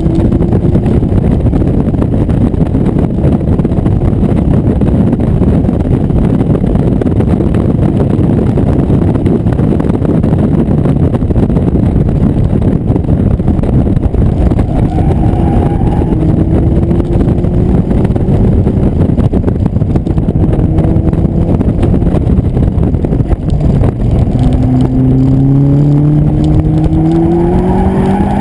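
Mazda MX-5's four-cylinder engine at speed, half buried under heavy wind buffeting on the microphone in the open cockpit. Its note climbs several times, most clearly near the end as the car accelerates hard.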